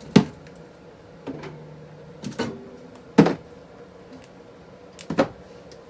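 A handful of sharp knocks and clunks, about five spread over the few seconds, the loudest a little past three seconds in: containers and fittings being handled inside an RV refrigerator.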